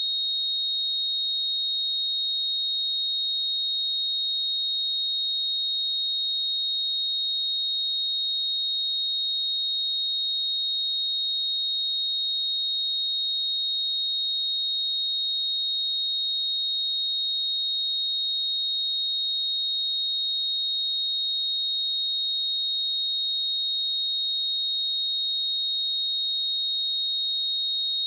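A pure 3742 Hz sine-wave test tone, one steady high-pitched whistle held at a constant level.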